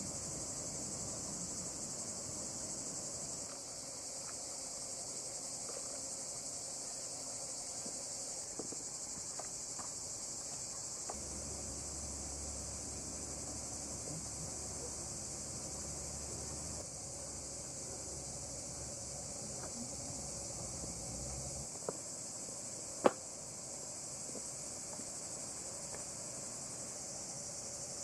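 Steady, high-pitched chorus of insects such as crickets, unbroken throughout. About two-thirds of the way through there is one sharp click, with a few fainter clicks before it.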